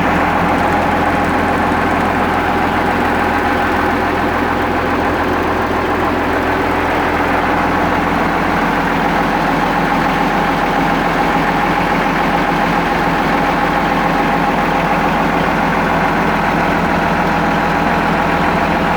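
Mercedes-Benz OH 1518 bus diesel engine idling steadily, with an even, unchanging note and no revving.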